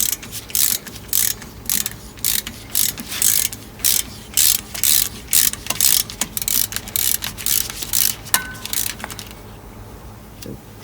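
Ratchet wrench clicking in short repeated strokes, about two a second, as it turns an 8 mm Allen bit to back out the Allen-head pad-retainer bolt on a truck disc-brake caliper. The clicking stops about nine seconds in, after a light metallic clink.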